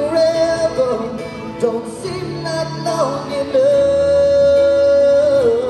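Male pop vocal group singing a ballad live over instrumental backing. About halfway through, a lead voice holds one long high note for nearly two seconds, then slides down.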